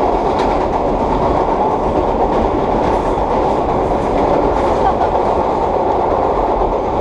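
Vintage R1/9 subway cars running at speed: a steady, loud rumble and growl of the motors' straight-cut gears and the wheels on the rails, with faint clicks over the rail joints.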